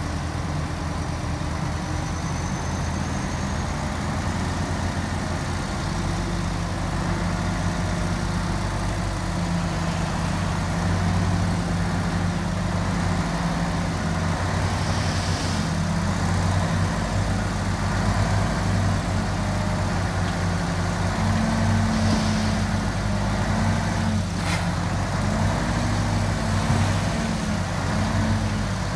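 Diesel engine of heavy earthmoving machinery running, its note rising and falling as the load changes, with one brief knock about 24 seconds in.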